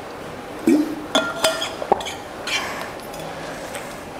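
A drinking bottle clinking and knocking as it is handled after a drink: a soft knock, then a few sharp ringing clinks about a second in and another click shortly after.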